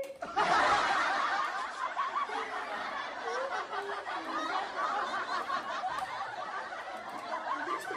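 Laughter: a dense stretch of snickering and giggling that starts suddenly about a third of a second in and carries on steadily.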